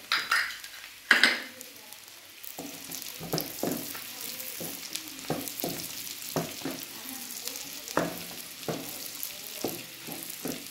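Chopped onion sizzling in hot butter and oil in a nonstick wok as it softens without browning, stirred with a wooden spoon. The spoon strokes through the pan at a steady pace over a constant hiss, with two louder bursts about a second apart at the start.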